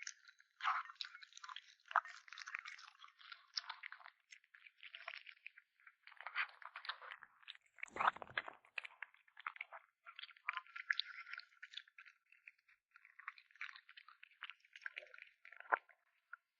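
Kitten chewing meat: an irregular run of crunching chews, with one heavier, deeper crunch about eight seconds in.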